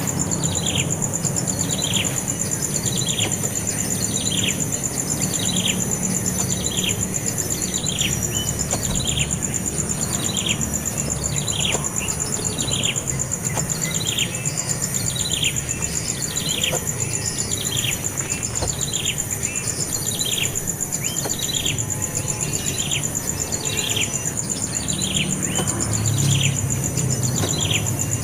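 A bird repeating a short call that slides down in pitch, evenly, about once every 0.7 seconds, over a steady high whine.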